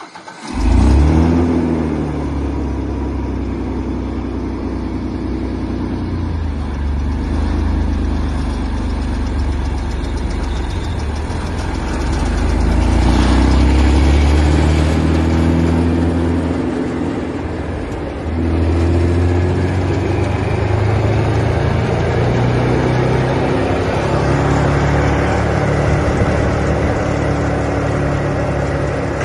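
Bandit 255XP wood chipper's engine starting about a second in, then running with its speed changing: louder for a few seconds around the middle, a brief drop, then running steadily.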